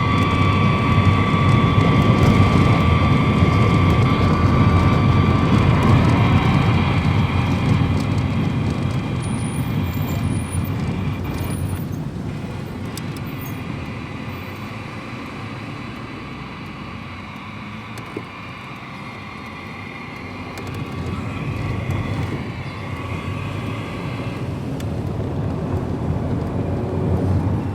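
Heavy low rumble of a shaking vehicle heard from inside, with a few steady whining tones above it. It eases off about two-thirds through, then builds again.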